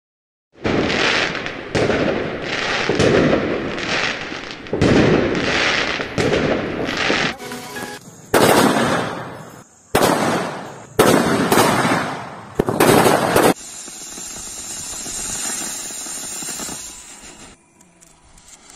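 A string of firework and firecracker bursts, one about every second, with several sharp bangs. These give way, about two-thirds of the way in, to a steadier, quieter hissing crackle.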